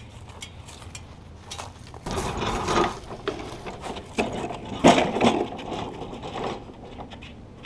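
A Walker mower deck being moved on a small wheeled dolly over a concrete driveway: a rolling scrape about two seconds in, then several metal clanks and knocks.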